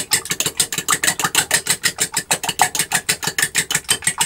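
Fork beating two raw eggs in a glass bowl: fast, regular clicking of the metal tines against the glass, about eight or nine strokes a second, stopping suddenly near the end.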